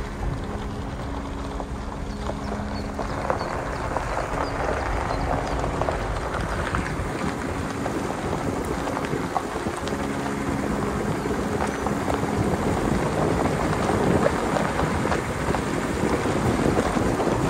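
Off-road 4x4 vehicle driving on a rough mountain track: the engine running steadily under wind noise and the rumble of the ride, slightly louder in the second half.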